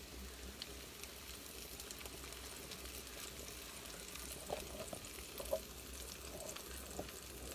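Food cooking on the stove: a faint, steady sizzle from the pan of artichoke sauce over a low steady hum, with a few small clicks about halfway through.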